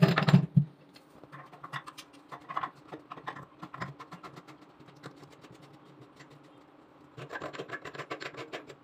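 Chrome bottle trap being screwed back together by hand: a short loud clatter of metal parts at the start, scattered clicks and scrapes, then a rapid run of clicking near the end as a threaded nut is turned.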